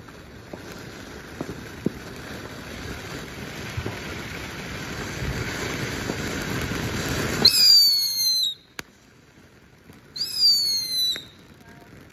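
Ground fountain firework hissing and crackling, its spray growing louder for several seconds. Then it gives way to a shrill whistle falling slightly in pitch, about seven seconds in, and a second whistle about three seconds later.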